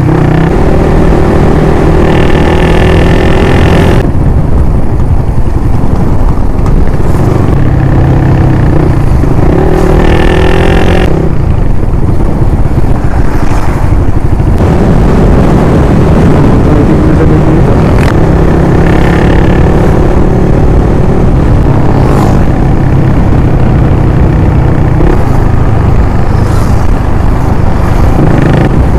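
Motorcycle engine running while riding, its pitch rising and falling as the rider speeds up and eases off. Loud, constant wind rush on the microphone runs under it.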